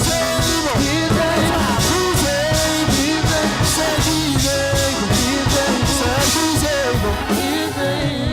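Live gospel band playing an upbeat vamp with a steady drum beat, bass and guitar, with sung voices over it.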